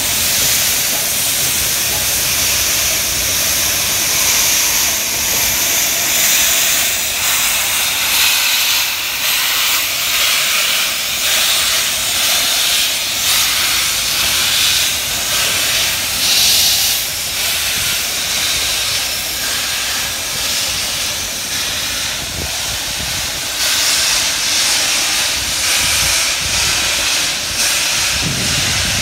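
Steam locomotive venting steam with a loud, continuous hiss that swells and eases in uneven waves.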